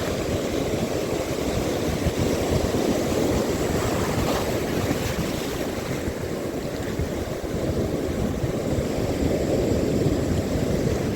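Steady wind buffeting the microphone, with the wash of sea water.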